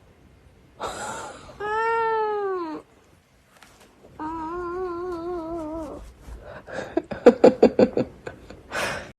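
A cat meowing: one long meow that rises and falls, then a longer wavering meow. Near the end comes a quick run of short pulsed sounds.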